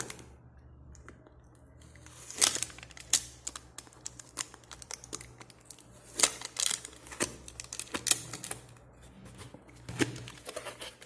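Cardboard packaging handled by hand: a printed paper sleeve slid off a cardboard box, with irregular scrapes, taps and rustles starting about two seconds in.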